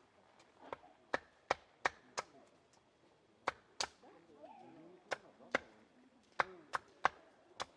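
Wood being chopped with a hand tool: about a dozen short, sharp blows at an irregular pace, some in quick pairs.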